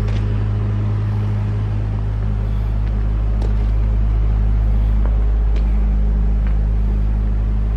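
An engine idling steadily, a low even hum that does not change, with a few faint clicks over it.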